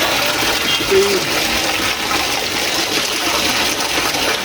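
Water pouring steadily from a traditional stone water spout (dhara) and splashing over hands being washed under it.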